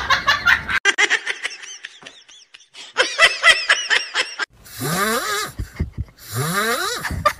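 A person laughing and giggling in quick repeated bursts. After that come two long, breathy sounds of about a second each, each rising in pitch.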